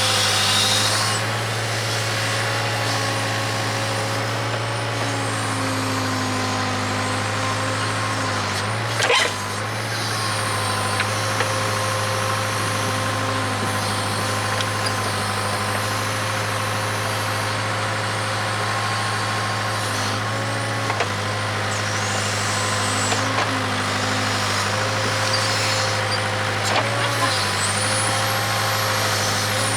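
Case 580K backhoe's four-cylinder diesel engine running steadily under digging load, its pitch dipping briefly several times as the hydraulics take load. A sharp knock comes about nine seconds in, and a few faint high squeals come later.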